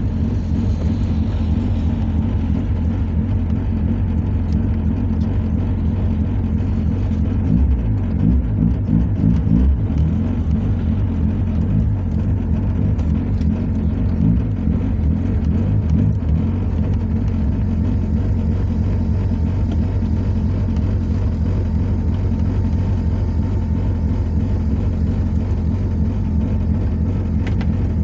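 Honda Civic's D16 four-cylinder engine running, heard from inside the cabin as the car rolls slowly and then sits idling. The sound is steady throughout, a little louder and more uneven about eight to ten seconds in.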